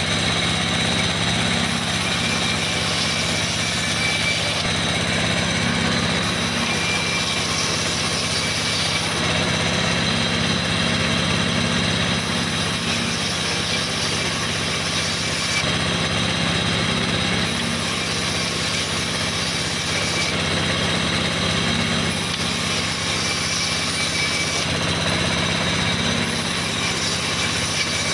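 Vertical band saw running steadily while its blade rips a board into lumber, with a constant motor hum under the cutting noise.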